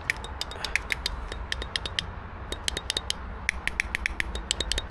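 Rapid, regular clicking, about seven clicks a second, with a short irregular break just past the middle, over a low steady hum.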